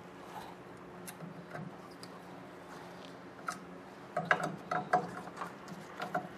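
Screwdriver turning the screws that lock a print head onto a printer's metal carriage: faint scattered clicks, then from about four seconds in a run of sharp metallic clicks, several a second.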